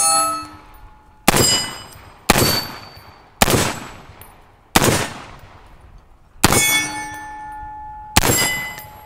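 Six shots from a Springfield Armory SAINT Victor .308 AR-10 pistol, fired at an unhurried pace one to one and a half seconds apart. Each hit sets a steel target ringing with a clang; the ring after the fifth shot hangs on until the next one.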